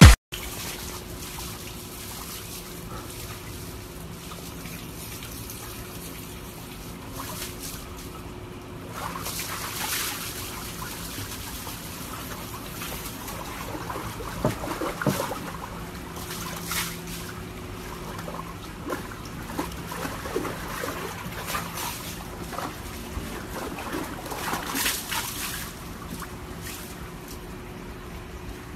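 Water sloshing and splashing in a plastic tub as a husky moves about in it, in several irregular bursts over a faint steady hum.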